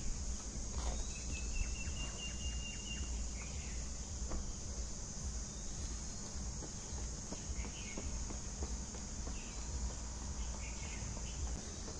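Steady, high-pitched insect chirring over a low rumble, with a short whistled bird call about a second in and a few faint ticks.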